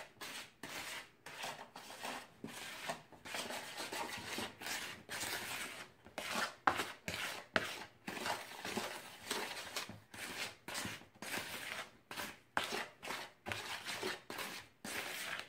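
Wooden spoon stirring dry flour mixture in a large plastic mixing bowl: a steady run of scraping, rubbing strokes, two or three a second, as the spoon drags through the flour and against the bowl.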